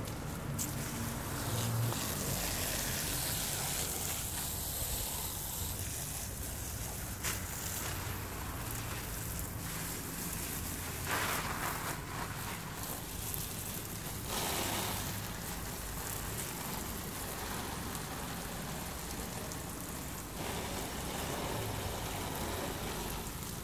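Steady hiss of water falling on leaves and foliage, swelling briefly a couple of times around the middle, over a low rumble.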